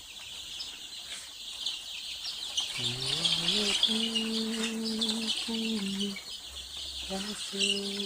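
A brooding house full of young ISA Brown pullets, cheeping and chirping continuously. From about three seconds in, a low hum joins them, holding steady notes and shifting pitch a few times.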